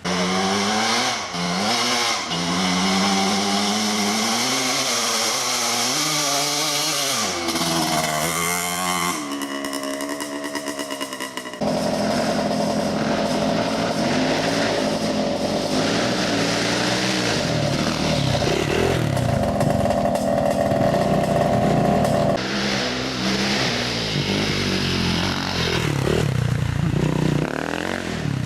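Off-road 4x4 engines revving hard, the pitch rising and falling again and again as the throttle is worked. The sound changes abruptly about twelve seconds in, to a steadier engine note that runs at high revs.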